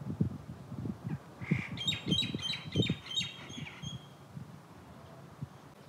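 A bird gives a quick series of about six high chirps lasting about two seconds, starting around two seconds in. Under the first half runs a rumble of irregular low thumps.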